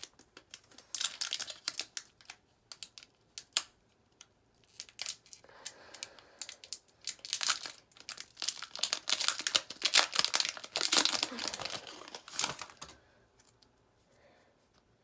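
Foil wrapper of a Pokémon TCG Evolutions booster pack crinkling in irregular crackles as it is handled and torn open; the crackling stops a couple of seconds before the end.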